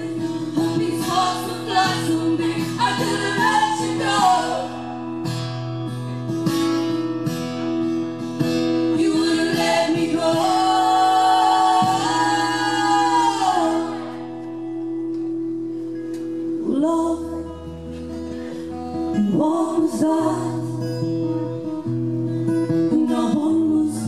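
Live music: guitar with singing, including one long held sung note that wavers in pitch around the middle, then a short lull before the song picks up again.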